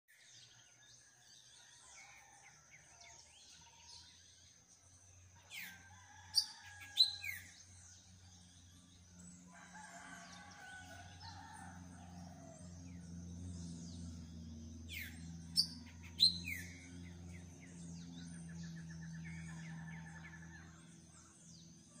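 Outdoor birdsong: birds chirping, with two bursts of loud, sharp, falling calls about six and fifteen seconds in, over a steady high-pitched trill. A low steady hum sits underneath through the middle.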